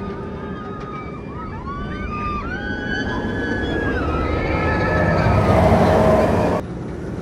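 Roller coaster on the move: a rushing noise that builds over several seconds, with high wavering tones over it, cut off suddenly near the end.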